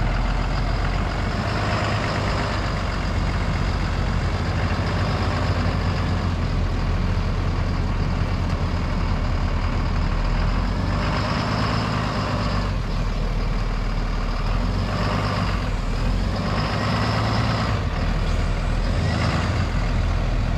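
Diesel engine of a Nexus super-C motorhome on an International truck chassis running steadily as the motorhome creeps forward and turns. A hissing, rushing noise swells up briefly a few times, about two seconds in and then from about eleven seconds on.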